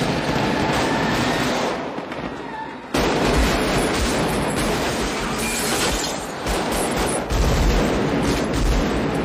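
A car driving hard on a city street, then, suddenly about three seconds in, sustained rapid automatic rifle fire, many shots in quick succession with heavy thumps, as bullets break through a car's windshield.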